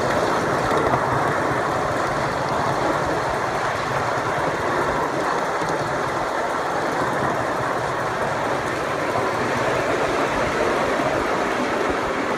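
Ride-on miniature railway train running steadily along its track: an even noise of the train and its wheels on the rails.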